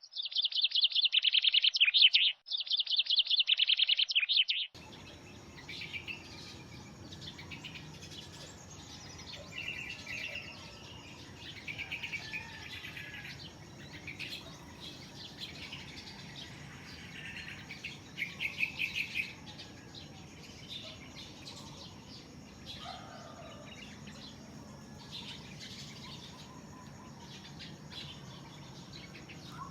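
Birds chirping at sunrise: loud, rapid, close chirping for the first four or five seconds, which stops abruptly. Quieter, scattered chirps follow in short runs over a steady low background hum and a faint constant high tone.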